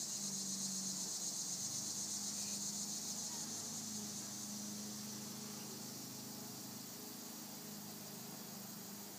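Insect chorus chirping steadily in a high, shrill, slightly pulsing band that gradually fades, with a faint low steady hum underneath.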